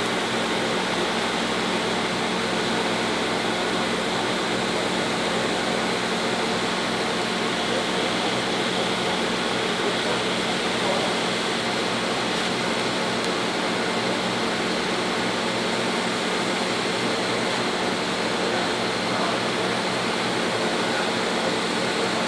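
TIG welding arc burning steadily at about 300 amps while a hot pass is laid in carbon steel pipe: an unbroken hiss with a low hum underneath.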